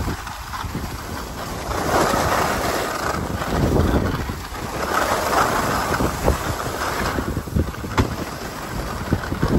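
Skis sliding and scraping over groomed snow, the hiss swelling and fading every couple of seconds with the turns, with wind buffeting the microphone.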